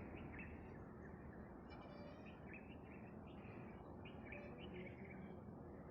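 Faint outdoor quiet with short bird chirps scattered through it, including a quick run of higher chirps about two seconds in.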